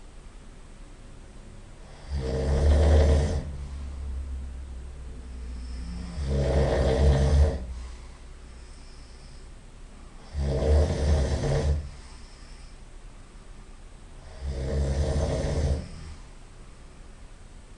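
A person snoring loudly: four long snores about four seconds apart, with quieter breathing between them.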